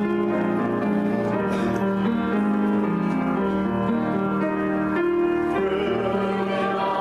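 Slow instrumental keyboard music: held chords that change about once a second.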